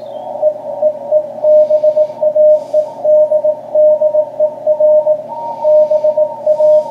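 Morse code (CW) from a ham radio transceiver on the 40 m band: a steady mid-pitched tone keyed on and off in dots and dashes over a continuous hiss of band noise.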